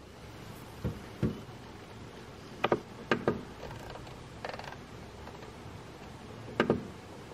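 Sharp clicks of the buttons and rotary knob on an AvMap EngiBOX engine monitor being pressed and turned, several of them in quick pairs, with short gaps between.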